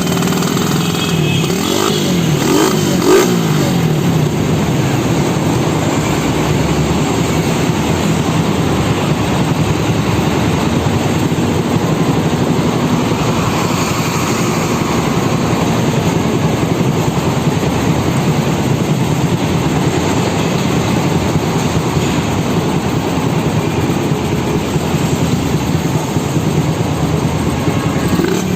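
Suzuki Raider 150's single-cylinder four-stroke engine running, revved up and down several times in the first few seconds, then running steadily at a fairly constant speed.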